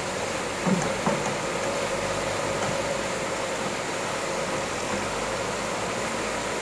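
John Deere backhoe's diesel engine running steadily over the even rush of muddy floodwater, with two short thumps about a second in.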